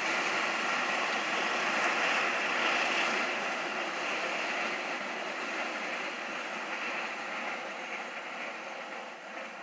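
Argo Parahyangan passenger train heard from afar, a steady rushing rumble of the train in motion that slowly fades as it moves away.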